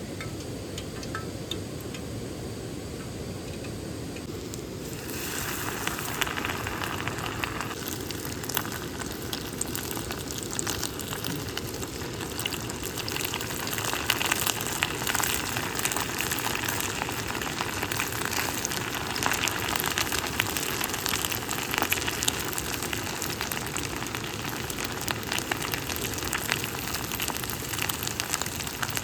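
Food sizzling and crackling in a hot pan. The sizzle starts suddenly about five seconds in, as if food were dropped into the hot oil, over the steady rush of a mountain stream.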